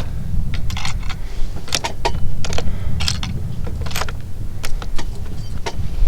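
Wind buffeting the microphone in a steady low rumble, with many small, sharp metallic clicks and clinks scattered through it.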